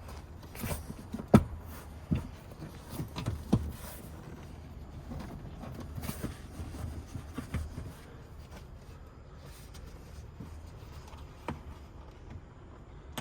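Irregular knocks and clicks of seat parts being handled and fitted back together during reassembly of a minivan seat, with a few sharper knocks in the first few seconds over a low steady rumble.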